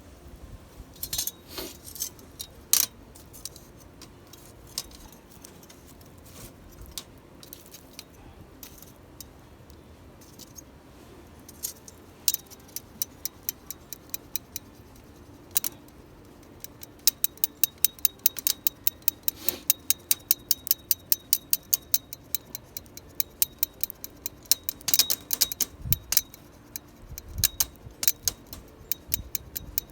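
Wood fire crackling, with sharp pops and ticks that come sparsely at first and then thick and fast through the second half.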